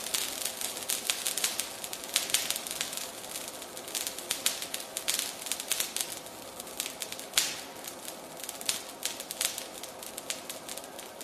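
Potassium permanganate and glycerine mixture with iron powder burning: a steady hiss with many sharp, irregular crackles and pops, thinning slightly toward the end.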